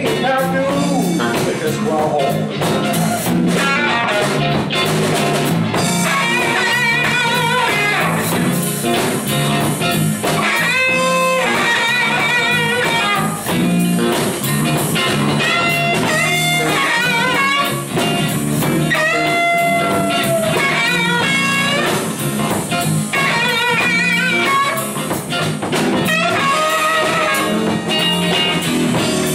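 Live electric blues band playing an instrumental break: lead electric guitar holding bent notes with a wide vibrato over bass guitar and a drum kit.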